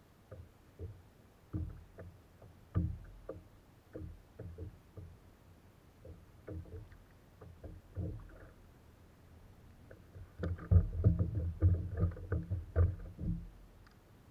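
Irregular knocks and bumps on the plastic hull of a Hobie Outback kayak, with water lapping at the hull. The knocks come thicker and louder for about three seconds near the end.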